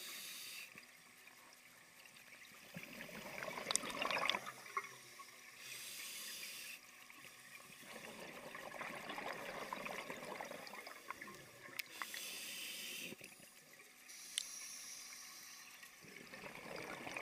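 A scuba regulator breathing underwater: short hissing inhalations alternating with longer bursts of bubbling, gurgling exhalations, about three breaths over the stretch.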